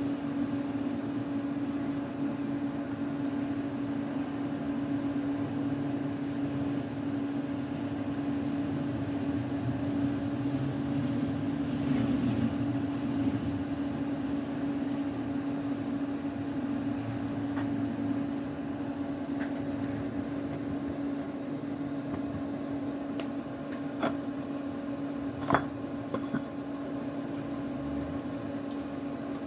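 Ultrasonic drilling machine running, its heart-shaped tube tool drilling into a gemstone: a steady hum with one strong low tone. A few short clicks sound in the second half.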